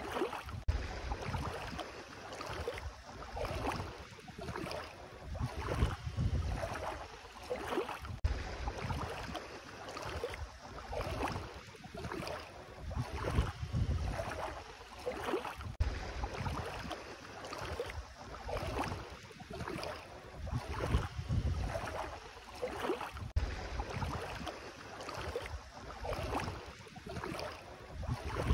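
Bare feet wading through shallow seawater, a splashing swish with each stride about once a second, over gusts of wind rumbling on the microphone.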